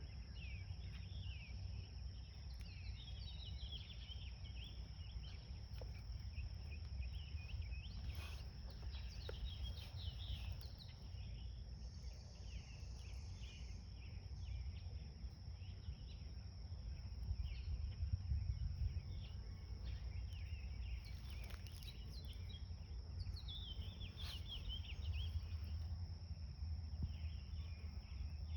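Garden ambience: many birds chirping and calling on and off over a steady, high, unbroken insect trill, with a constant low rumble underneath.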